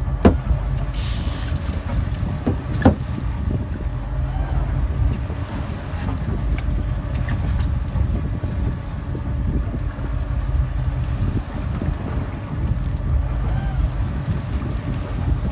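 Steady wind rumble on the microphone with boat and water noise, and two sharp knocks in the first three seconds from a fillet knife working a fish on a plastic cutting board.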